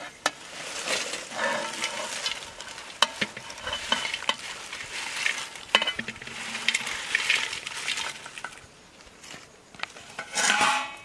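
Crisp fried potato chips slid off a banana leaf into a steel bowl, rustling and crackling, with small clicks as they land against the metal. The sound thins out after about eight seconds.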